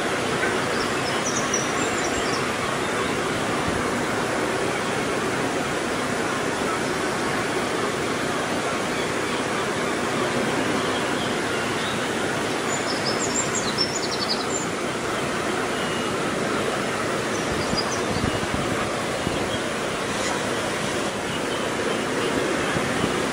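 Steady rushing outdoor noise, even throughout, with a few faint high bird chirps now and then.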